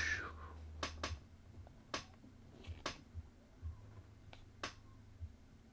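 About half a dozen light, sharp clicks and taps at irregular intervals, from handling the LED kit's small parts and packaging.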